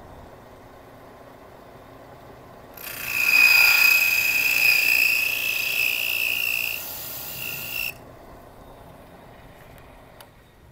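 Harbor Freight drill press cutter biting into a poker chip: a loud, high-pitched screeching whine of the spinning cutter milling the chip. It lasts about five seconds, drops a little near the end and cuts off suddenly.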